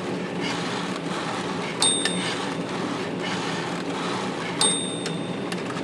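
Smith Corona electric typewriter running with its motor humming steadily, while its bell gives two short high dings, about two seconds in and again nearly three seconds later.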